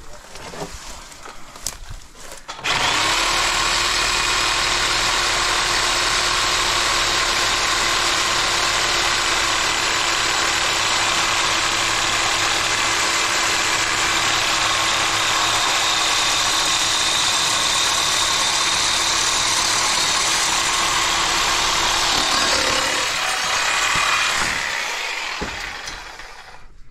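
Reciprocating saw (Sawzall) running steadily for about twenty seconds. It starts abruptly about three seconds in and winds down a few seconds before the end.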